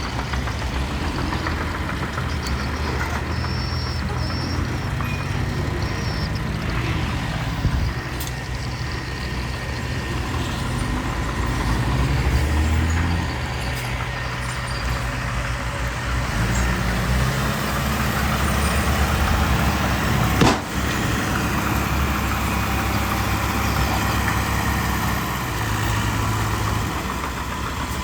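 Diesel engines of dump trucks and a small bulldozer running at a work site, the low engine note rising and falling a little, with one sharp bang about twenty seconds in.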